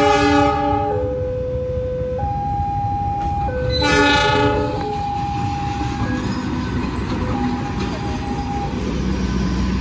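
Diesel locomotive horn giving two blasts of about a second each, one at the start and another about four seconds in. They sound over a level crossing's warning signal alternating between two tones. A low train rumble builds near the end as the train approaches.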